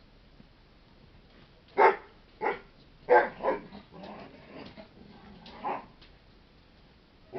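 A dog barking: four loud barks two to four seconds in, fainter sounds after them, and one more bark near six seconds.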